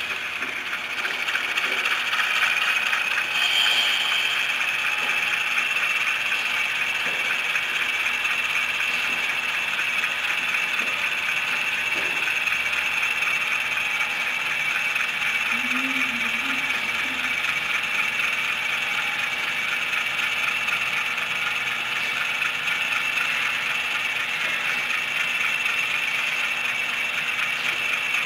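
HO-scale model freight train rolling along the layout track: a steady rattle of small metal wheels on rail, with a constant high whine, and a few faint clicks as the cars cross rail joints and turnouts.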